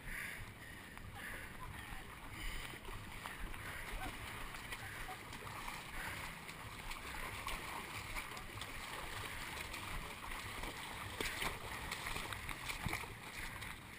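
Muffled low rumble of a chest-mounted GoPro being jostled as the wearer runs, with faint, indistinct voices of other racers.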